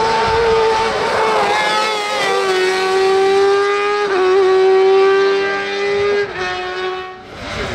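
High-revving racing engine of an open-wheeled buggy-style hill-climb car running hard at a high, steady pitch as it powers uphill. The pitch steps down about two seconds in and again near the end, then the sound fades away.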